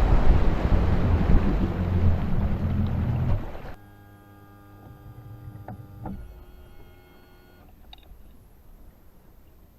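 Wind and water rushing as a bass boat runs across open water, cutting off abruptly almost four seconds in. A faint steady whine of several pitches with a few light clicks follows, stopping near eight seconds.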